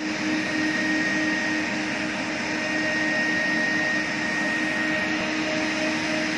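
Commercial drum-type wet-and-dry vacuum running steadily, its hose nozzle held down on the carpet. A constant rush of air comes with a steady motor whine.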